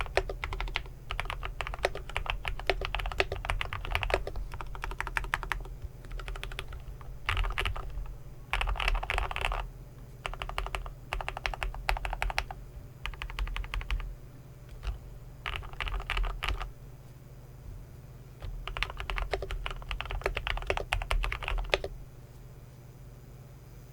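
Typing on an Idobao ID80 mechanical keyboard with linear Gateron Milky Yellow switches, an integrated aluminium plate and Cherry-profile keycaps: quick runs of keystrokes in bursts of a second or two with short pauses between, stopping a couple of seconds before the end.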